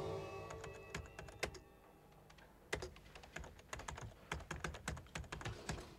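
Typing on a computer keyboard, in irregular clicks, as background music fades out at the start.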